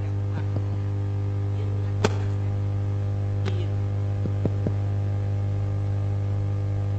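Steady electrical mains hum, with a sharp click about two seconds in and a few fainter ticks later.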